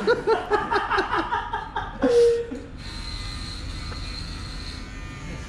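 Men laughing, then a short loud tone, then an electric hair clipper switching on about three seconds in and running with a steady buzz.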